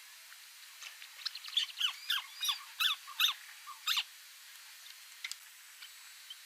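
White-browed crake calling: a chattering run of about seven loud notes, each dropping in pitch, starting about a second in and lasting about two and a half seconds.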